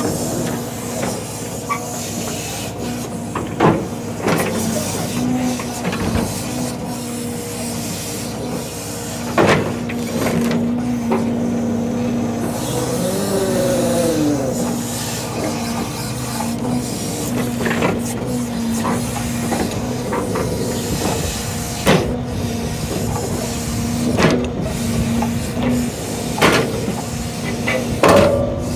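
Log truck engine running steadily to power the grapple loader's hydraulics, with about six sharp knocks and clunks from logs being gripped and set down on the rail car's load.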